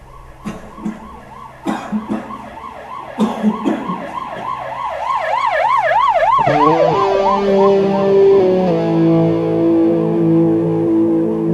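A siren wailing rapidly up and down, with a handful of sharp bangs over the first four seconds. About six seconds in, the siren gives way to guitar music with long held notes.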